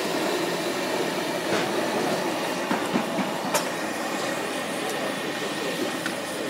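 Gas ring burner under an aluminium steamer pot running at full flame with a steady rushing noise, with a few light clinks about one and a half, three and three and a half seconds in.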